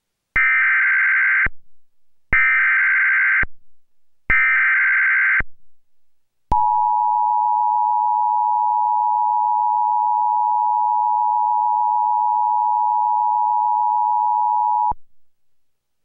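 Emergency Alert System activation: three one-second bursts of the screeching digital SAME header, then the long steady two-tone EAS attention signal for about eight seconds, which cuts off abruptly. Together they announce a Severe Thunderstorm Warning.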